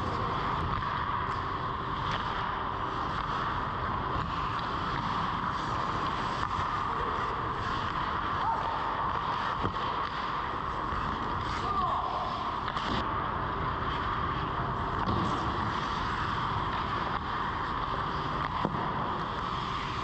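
Indoor ice rink ambience during a hockey scrimmage, heard from inside the goal: a steady hum and hiss with several short, sharp knocks from play on the ice.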